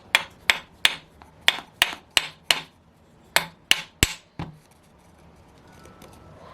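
About a dozen sharp, light taps on hard parts, roughly three a second, that stop about four and a half seconds in.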